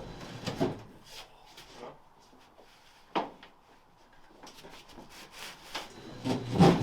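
Scattered knocks and scraping of hard objects being handled, with one sharp knock about three seconds in and a quiet spell just after it.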